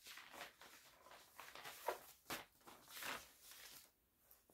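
Pages of a folder being leafed through: faint, irregular rustling and light scraping of sheets turned one after another.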